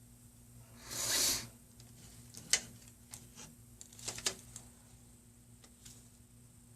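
Small screws and a metal screen bracket being handled, giving a scatter of light clicks and taps, with a brief rustle about a second in.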